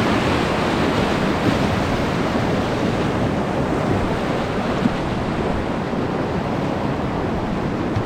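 Steady rush of whitewater pouring through a river rapid.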